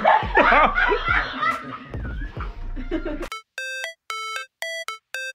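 Voices and laughter over a low bass line, cut off suddenly about three seconds in. A repeating electronic chime follows: short bell-like notes, about two a second.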